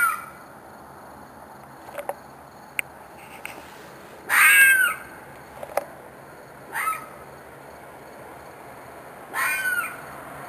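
An animal's harsh screeching scream, given four times at intervals of two to four seconds, each call arching up and down in pitch, the one about halfway through the longest and loudest. The recordist describes it as the cry of an animal in distress and thinks it may be a fox or a coyote. A few faint clicks sound between calls.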